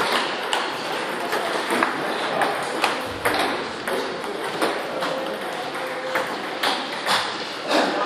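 Table tennis balls clicking off bats and tables, with irregular, overlapping taps from two rallies going at once.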